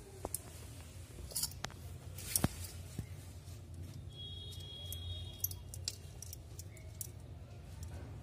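Small sharp clicks and scrapes as a plastic inlet-hose tap adapter and its metal screws are handled and adjusted, the loudest click about two and a half seconds in, over a steady low hum.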